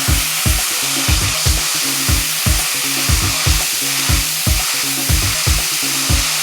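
Steady hiss of a pressure washer's high-pressure water jet spraying a surface, under background music with a steady beat and bass line.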